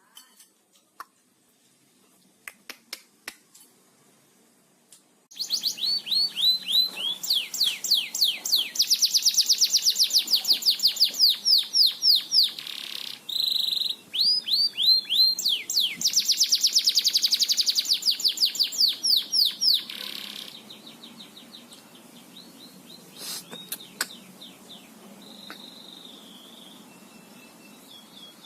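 Domestic canary singing long, rapid rolling trills. The song starts loud about five seconds in, after a few faint clicks, and fades to softer trills and a short whistle near the end.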